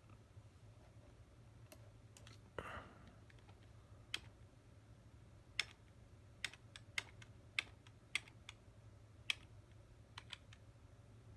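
Irregular sharp clicks of computer input, about a dozen, as the drive's property entries are stepped through, with a brief rustle about two and a half seconds in, over a faint steady low hum.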